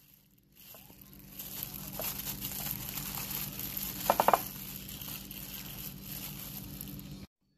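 Plastic disposable glove crinkling as a hand tosses zucchini slices in dry tempura batter mix in a bowl, with a quick run of about four sharp clicks about four seconds in. The sound cuts off suddenly near the end.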